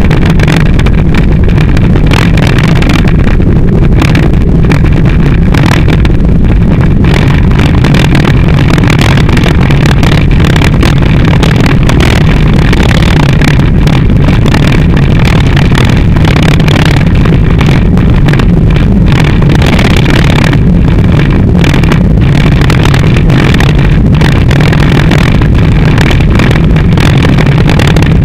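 Loud, steady rumble of a mountain bike in motion heard through a handlebar-mounted camera, with many small rattling knocks from the uncushioned mount shaking on the bars. Wind buffets the microphone.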